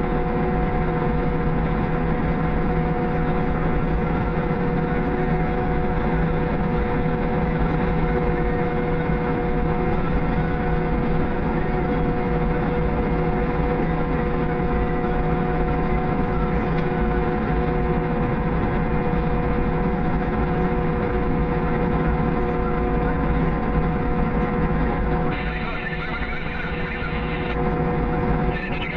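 Diesel engine of heavy farm machinery running steadily, a constant drone with a fixed-pitch whine over a low rumble.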